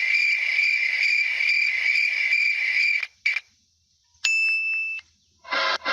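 Crickets chirping steadily for about three seconds as a stock sound effect, then cutting off; about four seconds in, a short ding-like electronic tone, and near the end the next effect begins.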